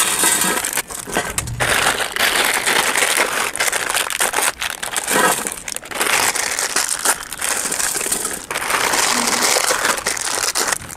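Plastic Maggi instant-noodle wrappers crinkling loudly as they are torn open and emptied by hand, with short pauses between handlings.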